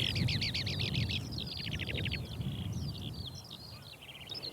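Male skylark singing its territorial song: an unbroken, rapid stream of high warbling notes, trills and buzzy rattles, over a low background rumble.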